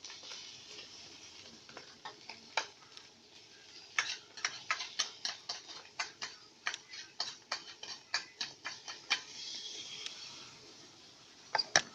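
A spatula clicking and knocking against a pan while stir-frying, in quick irregular strokes for a few seconds, over a faint sizzle of frying food.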